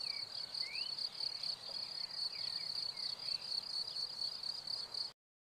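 Crickets chirping in a continuous high, rapidly pulsing trill, with a few short gliding chirps over it. The sound cuts off abruptly about five seconds in.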